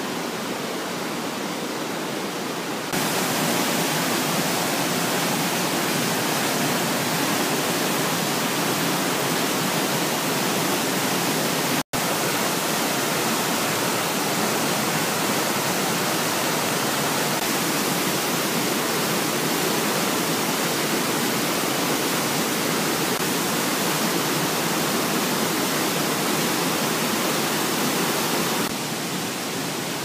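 Steady rush of a waterfall pouring into a rocky gorge, a dense even noise of falling water. It gets louder about three seconds in, cuts out for a split second near the middle, and is a little quieter again near the end.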